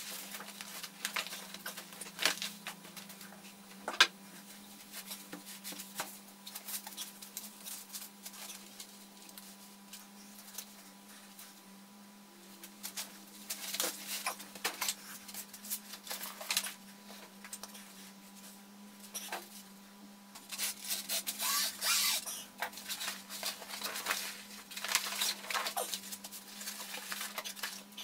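Rustling and crinkling of a roll of sail fabric being unrolled and spread by hand over plastic sheeting on a floor, in short irregular bursts with a sharp knock about four seconds in. A steady low hum runs underneath.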